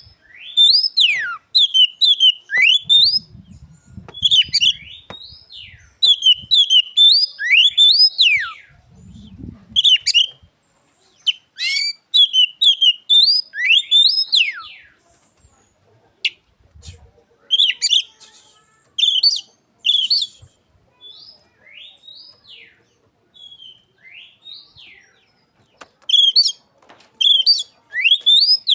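Oriental magpie-robin (kacer) singing in loud repeated whistled phrases with quick rising and falling sweeps, in bouts broken by short pauses, mimicking the song of an Asian pied starling (jalak suren).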